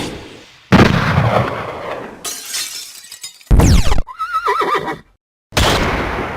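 A rapid string of separate sound effects. A loud crash with breaking sounds fades away. About four seconds in comes a horse's whinny with a wavering pitch. After a brief silence, another loud noisy effect starts near the end.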